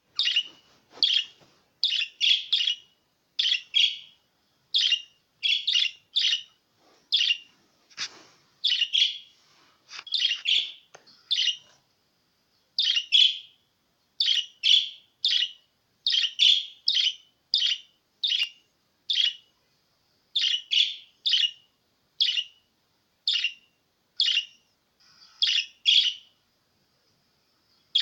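Budgerigar chirping: short, high calls repeated about once a second, some single and some in quick runs of two or three, with brief pauses between.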